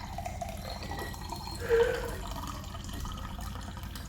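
Water dripping and trickling from wet laundry, over a steady low hum, with one louder moment a little under two seconds in.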